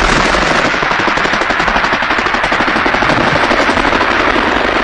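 Rapid machine-gun fire in one long unbroken burst.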